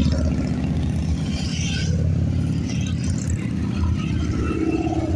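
Motorcycles and a trike riding past in a close procession, their engines rumbling steadily as one bike after another goes by.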